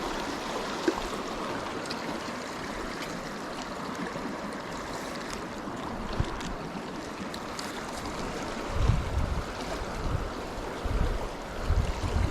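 River water rushing steadily over rocks, heard from in the stream. Low rumbling bumps on the microphone come in during the last few seconds.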